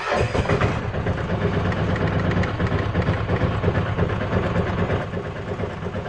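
A vehicle engine turned over from the ignition key at the start position: a fast, even mechanical rhythm that starts suddenly, keeps going for about six seconds, then dies away.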